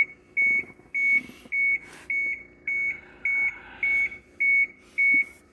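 Dashboard warning buzzer of a diesel bus beeping with the key switched on and the engine not running: a steady high beep repeating evenly, nearly two a second.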